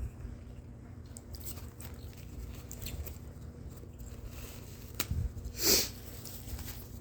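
A woman's nose and breathing sounds while she tries to bring on a sneeze: faint sniffs, a click about five seconds in, then one short, sharp, hissing nasal burst just before six seconds, the loudest sound.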